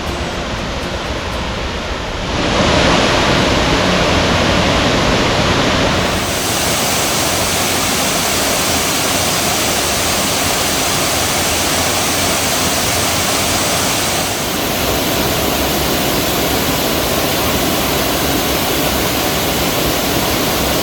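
Waterfall at close range: a loud, steady rush of falling water. The sound jumps abruptly in level and tone about 2, 6 and 14 seconds in.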